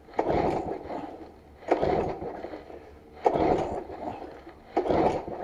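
Briggs & Stratton engine on a petrol push mower being pull-started: four pulls of the recoil starter cord about a second and a half apart, and the engine turns over each time without catching. The owner puts this down to the mower not having been started for a while and being low on fuel.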